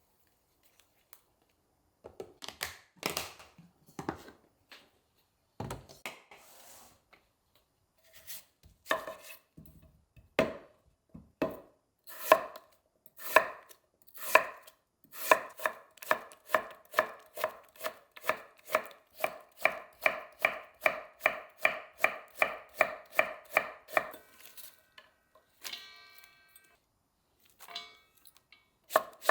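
Kitchen knife chopping on a cutting board: a few scattered cuts at first, then a steady run of about three chops a second, each with a slight ring. The chopping stops a few seconds before the end, and some lighter knocks follow.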